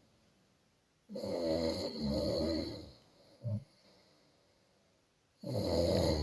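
Person snoring in sleep: two long snores about four seconds apart, with a brief short one between them.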